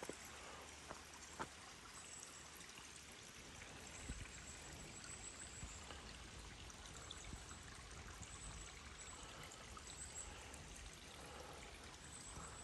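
Faint, steady rush of a flowing stream, with a few soft clicks and short high-pitched chirps recurring over it.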